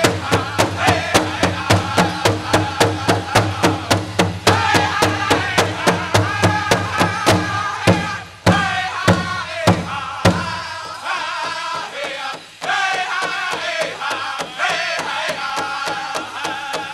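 Powwow drum group beating a large drum in a steady fast beat, about three beats a second, with a group of singers chanting over it. A few louder, more widely spaced beats come about halfway through, and the song ends right at the end.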